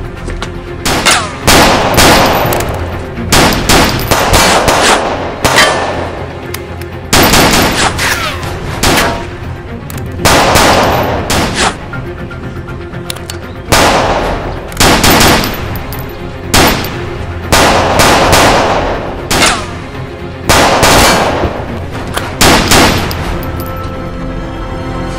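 Gunfire in a film shootout: loud shots with echoing tails, some single and some in quick bursts like automatic fire, coming every second or two over background music.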